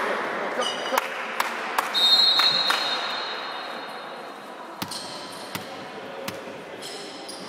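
Volleyball play in a reverberant sports hall: a ball knocking on the floor a few times, a referee's whistle blast about two seconds in, then single hits of the ball a few seconds later as play restarts with the serve. Shoes squeak briefly on the wooden floor near the start and near the end.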